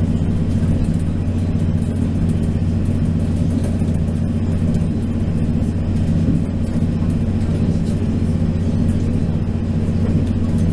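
Inside a DR2900/3000 diesel railcar running at speed: a steady low drone from the underfloor diesel engine, with the running noise of the train under it.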